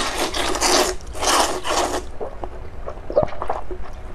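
Luosifen rice noodles slurped into the mouth in two long sucking draws, followed by a few quieter wet mouth clicks.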